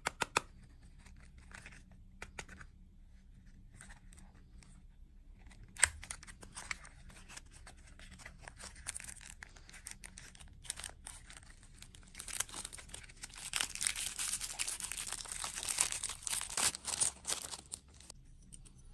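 Packaging being crinkled and torn, with scattered sharp clicks and one louder snap about six seconds in. In the second half the crackling becomes dense and louder, then stops near the end.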